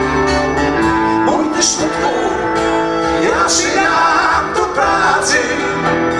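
Live blues band playing, with acoustic guitar and bass guitar under held notes; male voices start singing about a second in.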